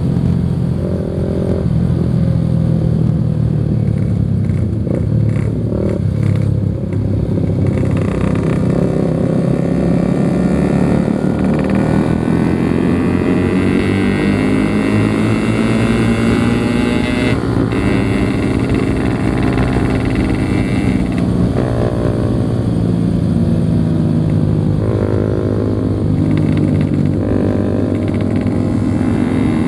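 Yamaha RX King's 135 cc two-stroke single-cylinder engine running on the move, its pitch rising and falling with the throttle. Other motorcycle engines can be heard alongside it.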